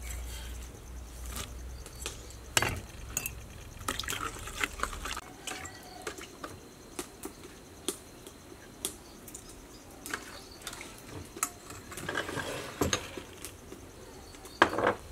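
A spoon stirring a thin, liquid sauce in a stainless steel bowl, with scattered light clinks and taps of metal utensils and dishes, and a louder knock near the end.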